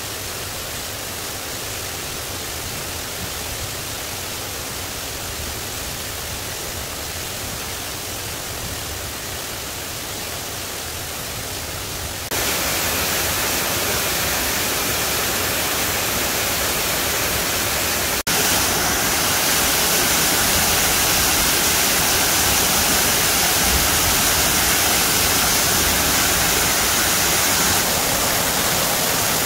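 Steady rush of running water from a mountain stream and waterfall. It gets abruptly louder and brighter twice, about 12 and 18 seconds in.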